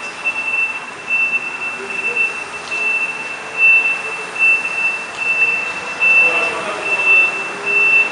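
A truck's reversing alarm beeping steadily, about three beeps every two seconds, as the GMC truck backs into the station bay.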